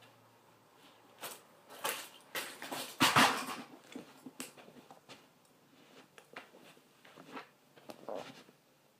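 High-heeled shoes stepping among scattered plastic toy cars on a hard floor, knocking the toys about: a series of irregular knocks and clatters, the loudest a little after three seconds in.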